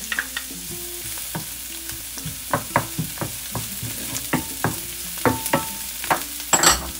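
Chopped shallots and garlic sizzling in olive oil in a nonstick frying pan, stirred with a wooden spatula. A steady sizzle runs under frequent short scrapes and taps of the spatula on the pan, with a louder knock near the end.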